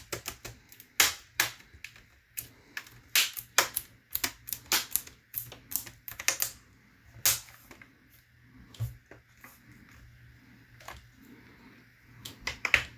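A Lenovo laptop's plastic screen bezel clipping back onto the lid as it is squeezed around the edges: a run of sharp, irregular plastic clicks and snaps that thins out to a few after about seven seconds.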